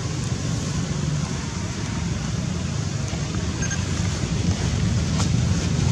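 Steady wind noise buffeting the microphone, a low rumble under an even hiss, with a faint click about five seconds in.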